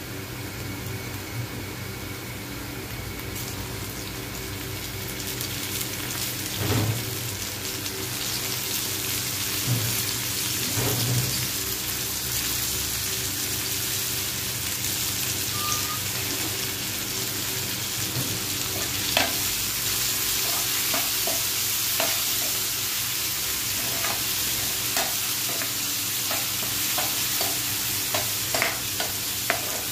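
Chopped onions and tomatoes sizzling in hot oil in a nonstick frying pan, a steady hiss, with a few low thuds about a third of the way in. In the second half a spoon stirs the mixture, knocking and scraping against the pan in short repeated clicks.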